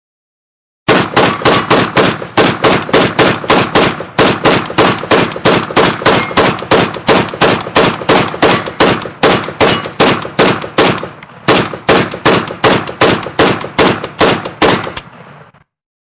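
AK-47 rifle firing a long, steady string of rapid shots, about five a second, with a brief break about eleven seconds in, stopping about a second before the end with a short echo.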